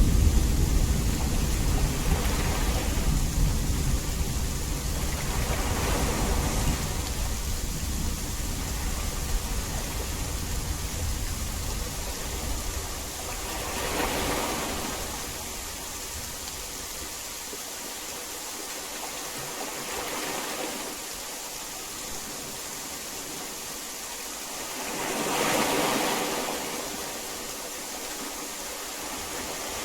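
Steady hiss of heavy rain, with a deep thunder rumble that dies away over the first half. The rain swells louder briefly about halfway through and again more strongly near the end.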